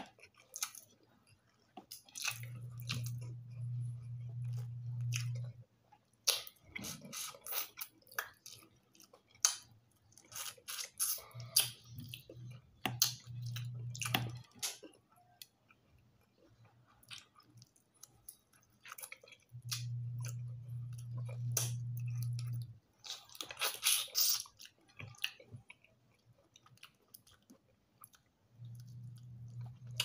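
Close-miked eating sounds: chewing, lip smacks and crunching as fried tilapia and rice, eaten by hand, are chewed, heard as many short wet clicks and crackles. A low steady hum of about three seconds comes in four times, every eight or nine seconds.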